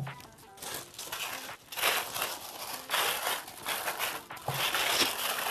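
Thin white packaging wrap from a new keyboard crinkling as it is handled, in several irregular rustling bursts.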